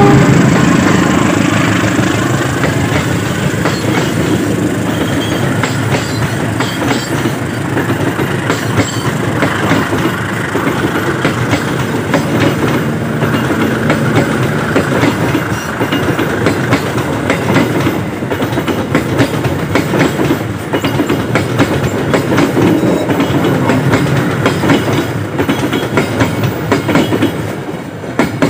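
Passenger train carriages rolling past close by, their wheels clattering over the rail joints in a quick, uneven clicking over a steady rumble. The sound fades near the end as the last car goes by.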